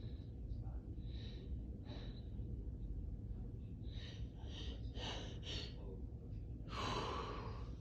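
A person's gasping breaths as an allergy sneeze builds up but does not come. There are several quick sharp inhales about four seconds in, then a longer, louder breathy exhale near the end: a sneeze false start.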